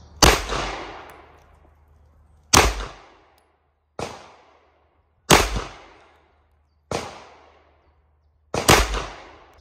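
Six semi-automatic pistol shots fired one at a time, about one and a half seconds apart. Each crack is followed by a short ringing echo.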